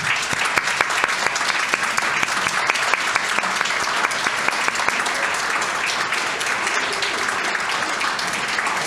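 A roomful of people applauding steadily, a dense patter of many hands clapping.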